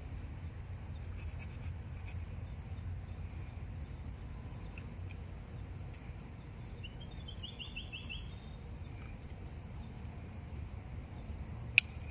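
Outdoor ambience with a steady low rumble, a short bird trill of quick rising notes just past the middle, and one sharp click near the end.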